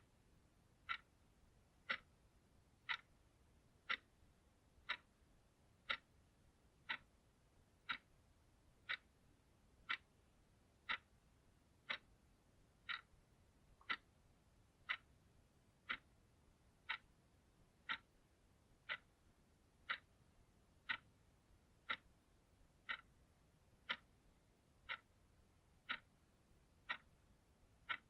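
Clock ticking steadily, one sharp tick each second at an even tempo.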